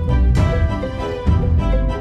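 Background music: held instrumental tones, with new notes coming in softly twice.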